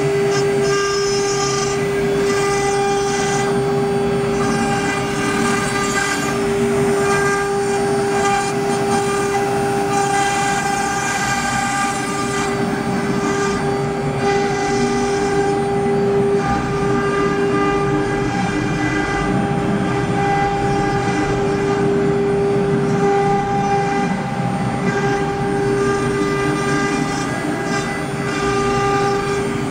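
Spindle motors of a double-head CNC router running steadily at speed, driven at 400 Hz by their inverter: one constant whine with a ladder of overtones, over a rushing machine noise.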